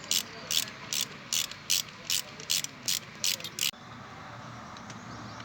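Socket ratchet wrench clicking in a steady run of back-strokes, about two and a half a second, as a fastener is worked; it stops about two-thirds of the way through.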